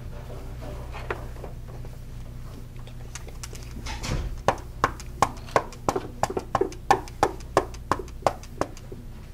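A run of short, sharp knocks at about three a second, beginning faintly about three seconds in and growing louder, a made-up sound effect of chopping wood with a hatchet. A low steady hum lies underneath.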